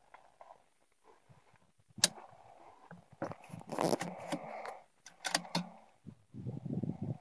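Handling noise from a phone being turned in the hand: rubbing and scraping on the microphone with a few sharp clicks. The first click comes about two seconds in, and there is a low rustle near the end.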